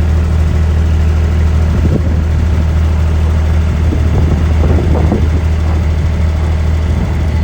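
Steady, loud low engine drone that holds unchanged throughout, with faint voices of people nearby about four to five seconds in.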